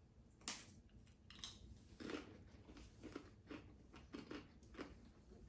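Faint chewing of a mouthful of hummus, with a few soft, irregular mouth clicks.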